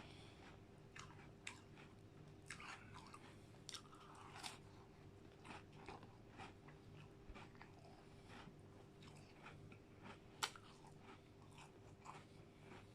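Close-miked chewing and crunching of McFlurry ice cream mixed with McVitie's digestive biscuits: quiet, irregular small crunches and wet mouth clicks, with one sharper crunch about ten seconds in.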